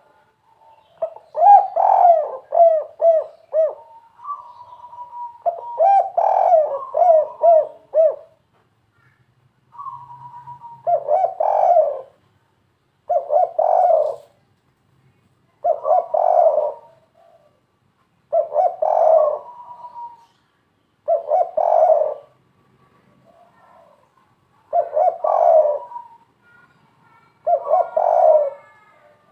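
Caged spotted dove (derkuku) cooing in the 'kuk 3' three-note style. Two longer runs of quick pulsing coos come first, then short coo phrases repeat about every two and a half seconds.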